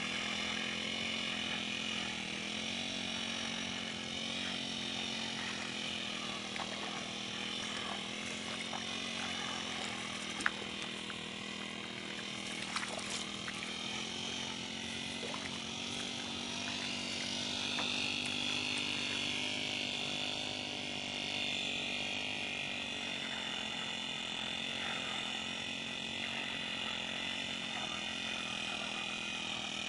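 Brush cutter powered by a Honda GX35 four-stroke engine running steadily, with two sharp ticks partway through.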